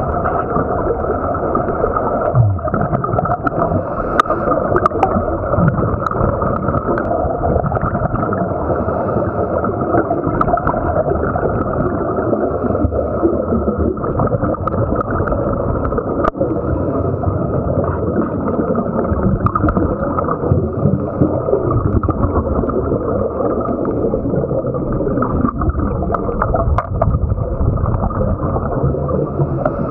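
Muffled underwater sound through a camera housing: steady gurgling and rumbling of scuba divers' exhaust bubbles, with scattered sharp clicks.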